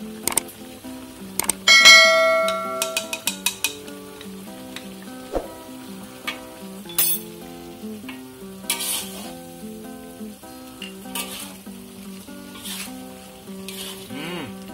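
Metal spatula stirring and scraping vegetables in an aluminium wok with a light sizzle as the starch slurry thickens the sauce. About two seconds in comes a loud ringing metal clang, then a quick run of clinks.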